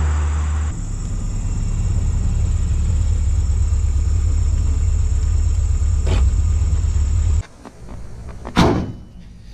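1978 Datsun 210 driving past with a steady low engine rumble. Near the end, a single loud bang as its hood is slammed shut.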